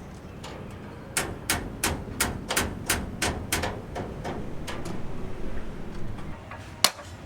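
A rapid series of sharp knocks, about three a second for a couple of seconds, then fainter scattered knocks and one loud crack near the end.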